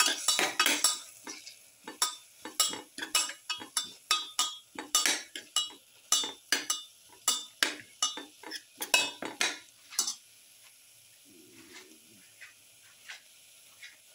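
Slotted stainless-steel spoon scraping and clinking against a metal pan, stirring onions, garlic and tomatoes in quick repeated strokes. The stirring stops about ten seconds in, leaving a few light taps.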